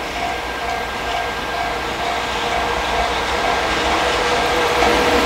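JR Freight EF210 electric locomotive hauling a container freight train, approaching and growing steadily louder as wheel and running noise builds. A short ding repeats about twice a second in the first half, fading under the train noise.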